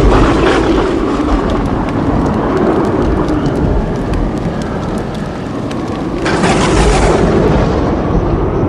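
Thunder: a loud crack right at the start and another about six seconds in, with deep rolling rumble between them.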